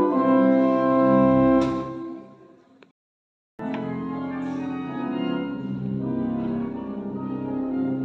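Church pipe organ holding full sustained chords that echo in a large stone church. About two seconds in, the chord dies away in a long echo and drops into a short dead silence, then the organ comes back in with another held chord.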